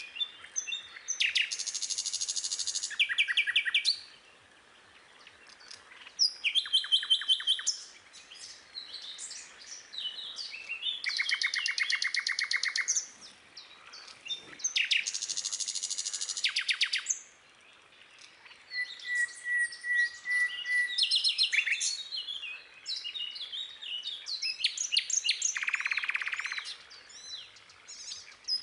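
Small songbirds chirping and singing, phrase after phrase of fast high trills and chirps with short pauses between them.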